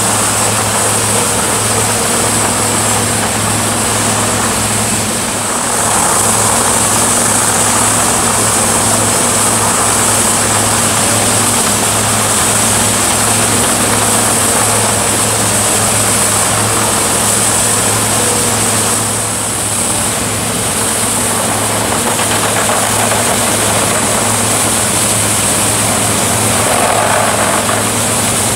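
Chain flail delimber-debarker running under load: a steady diesel engine note under the dense noise of the flail drums' chains beating limbs and bark off trees being fed through. The level dips briefly about five seconds and again about nineteen seconds in.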